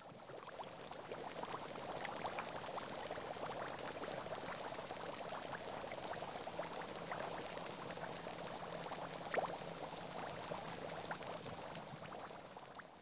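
Countless air bubbles escaping from dry stream-bed sand as returning river water soaks into it: a dense, steady fizzing made of many tiny pops.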